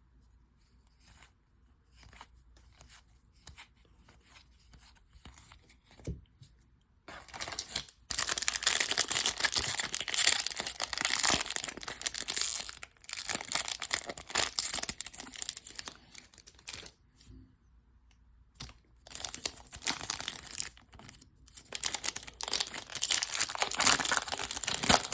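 Foil wrappers of baseball card packs being torn open and crinkled. Soft handling at first, then a long stretch of tearing and crinkling from about seven seconds in, a short pause, and a second stretch near the end.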